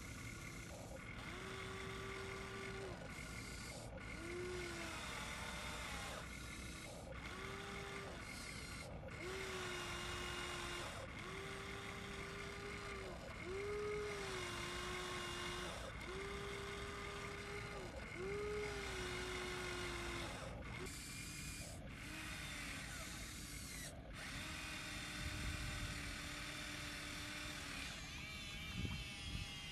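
Huina 1593 RC excavator's small electric motors whining in a string of short runs, a second or two each and a dozen or so in a row, each a steady whine that bends in pitch as it starts or stops, as the boom, arm and bucket work the mud. A few low thuds near the end.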